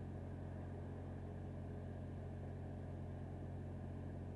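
A steady low engine hum, idling without change.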